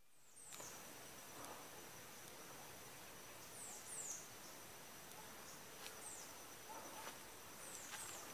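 Faint forest insect drone: a steady, thin, high buzz, with a handful of short, high, falling chirps scattered through it.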